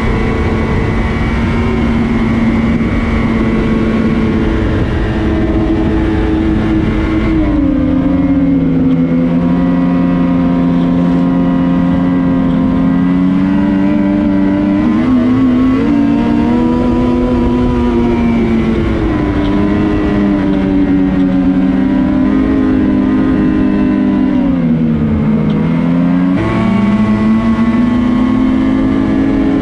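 Ski-Doo Renegade XRS 850's two-stroke twin engine running hard on the trail; its pitch drops about a quarter of the way in, wavers with the throttle, then dips and picks back up near the end.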